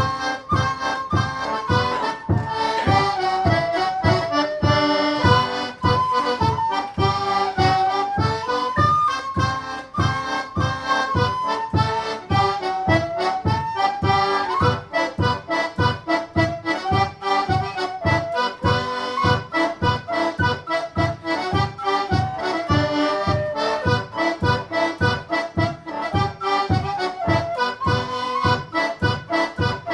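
One-row melodeon playing an instrumental tune, with the melody running over a steady pulsing bass-and-chord rhythm.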